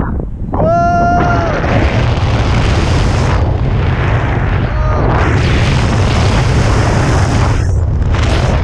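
Wind buffeting a small action-camera microphone in flight under a paraglider, a loud steady rumbling roar. A short high-pitched cry cuts through about a second in.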